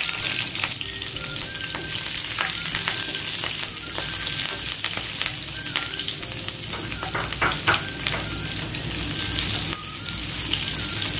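Sliced green chillies and whole spices frying in hot ghee in a wok: a steady sizzle with frequent small crackling pops, while a wooden spatula stirs them.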